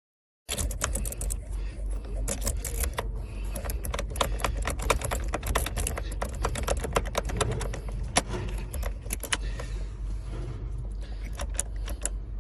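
Jiggler key being worked in and out of a GM ignition lock cylinder to pick it, giving fast, irregular metallic clicking and rattling over a steady low rumble. It starts abruptly about half a second in.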